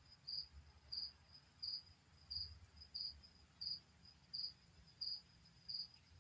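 A cricket chirping steadily: short, high chirps repeating evenly about every two-thirds of a second.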